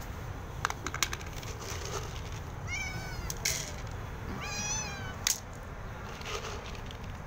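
Stray cat meowing twice: a short meow about three seconds in and a longer one near five seconds, each rising and falling in pitch. A few sharp clicks come in between.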